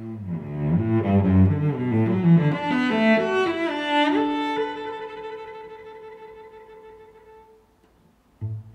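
Background string music: a run of bowed notes climbs to a held chord about four seconds in that slowly fades away, then short plucked notes start up near the end.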